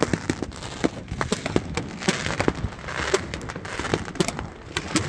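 Consumer fireworks and firecrackers going off: many irregular sharp pops and crackles, with a couple of brief hissing stretches in the middle.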